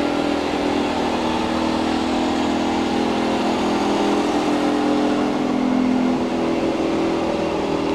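Model aircraft engine of a garden-railway Bo-Bo locomotive running steadily with a buzzing note that wavers a little in pitch, hauling a long goods train.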